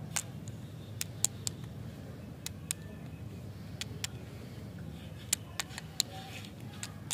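Light clicks and taps of candy lollipops and their plastic sticks knocking together as they are picked up and gathered in a hand, about a dozen at irregular intervals over a steady low hum.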